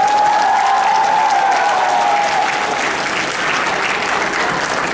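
Audience applauding: a dense, steady clatter of many hands clapping, with one long held tone above it for the first half.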